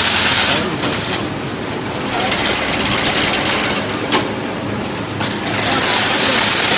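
Fully automatic single-wire chain link fence machine running: a continuous, dense, rapid mechanical clatter from its wire-forming and weaving mechanism, growing louder and hissier near the start and again near the end.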